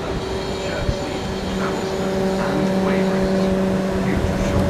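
South Western Railway electric multiple unit moving along the platform, its running gear rumbling under a steady pitched hum that grows slightly louder about two seconds in.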